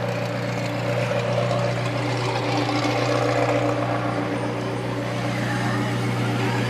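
Car engine idling steadily, a constant low hum with a slight rise in one of its higher tones about two and a half seconds in.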